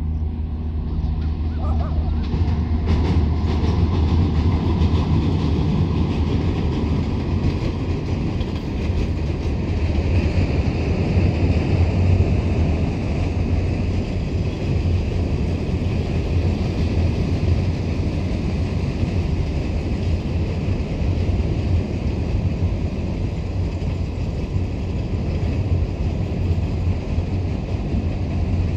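Steady rumble and rush of a passenger train running at speed, heard from on board.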